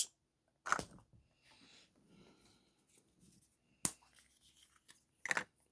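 Handling sounds of a surprise egg and its toy: faint rustling of wrapping with a few short clicks, the sharpest about four seconds in.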